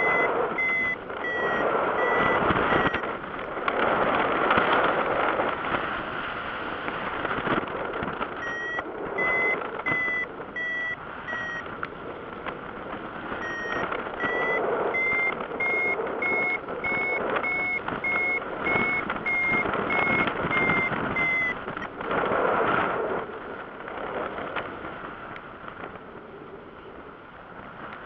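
Paragliding variometer sounding its climb tone: short beeps at about two a second, in three spells, the last one a little higher in pitch, signalling that the glider is climbing in rising air. Wind rushes over the microphone underneath, swelling and easing.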